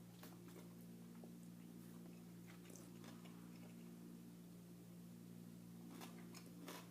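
Faint close-up chewing and biting, with soft mouth clicks and smacks now and then, over a low steady hum.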